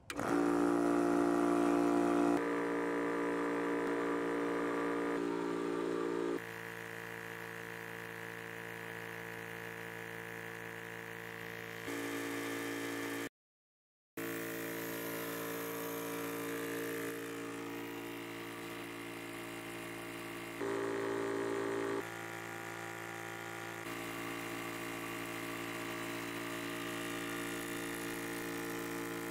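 Yong Heng 4500 psi PCP air compressor switched on and running steadily, a constant mechanical hum with several fixed tones, as it pumps air into an empty high-pressure tank. The sound cuts out for under a second about 13 seconds in and shifts in loudness a few times.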